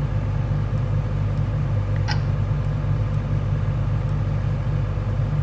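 Diesel engine of a Lonking CDM6225 excavator running steadily, heard from inside the cab as a constant low hum, with a few faint clicks.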